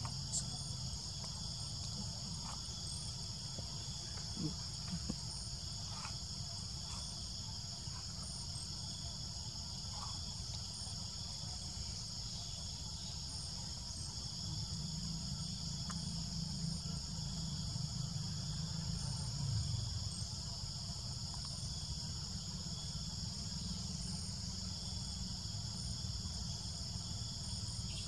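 Steady, continuous high-pitched drone of an insect chorus in the forest, over a low steady rumble, with a few faint ticks here and there.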